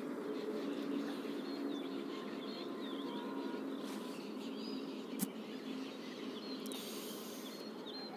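Steady background noise with faint bird chirps and a few light clicks.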